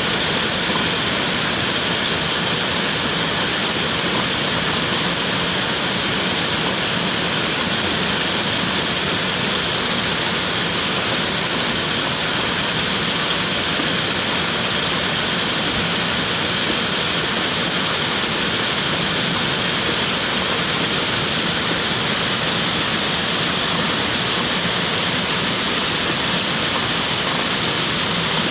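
Steady heavy rain falling, a dense even hiss with no single drops standing out.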